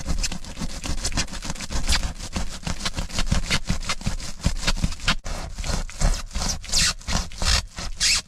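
Rapid, uneven scraping and rubbing strokes, several a second, of foam insulation sheet being cut and worked into place.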